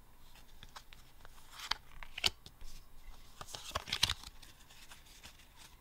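Yu-Gi-Oh! trading cards being handled: short scrapes and light taps as cards slide against each other and are set down on a play mat, clustered around two seconds and four seconds in.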